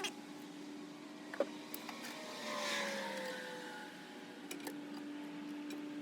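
A vehicle passing by, its sound swelling and fading with a slowly falling pitch in the middle, with a few light clicks around it.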